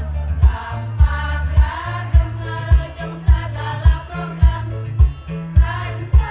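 Women's choir singing in harmony over an accompaniment with a steady bass-drum beat, a little under two beats a second, and a stepping bass line.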